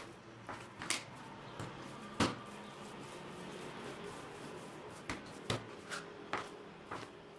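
Plastic bench scraper cutting down through dough onto a wooden tabletop, with the dough pieces being set down. It gives scattered short taps: the sharpest comes about two seconds in, and a quicker run of them follows in the last few seconds.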